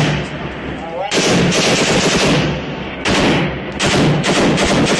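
Automatic rifle fire at close range in about four bursts, each from half a second to over a second long, with short pauses between them.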